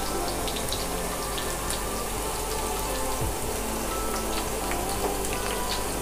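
Chopped onions and garlic cloves sizzling in hot oil in a nonstick frying pan: a steady hiss dotted with small crackling pops.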